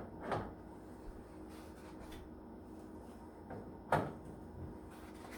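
Eggs being set one by one into a plastic egg container: a few light clicks and knocks, the loudest about four seconds in.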